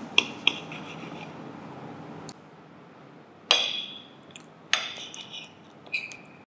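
Steel knife and fork clinking against a dinner plate while a steak is cut: two quick clinks near the start, then three more ringing clinks about a second apart in the second half.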